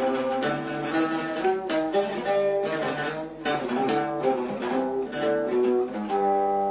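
Instrumental interlude of an Arabic song's accompaniment: bowed strings play the melody over plucked strings, settling onto a long held note near the end.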